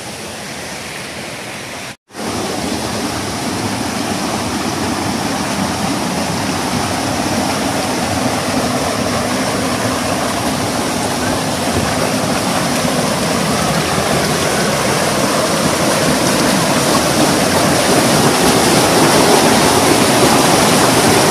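Rocky stream cascading over boulders: a steady rush of water that slowly grows louder. It starts after a short break in the sound about two seconds in.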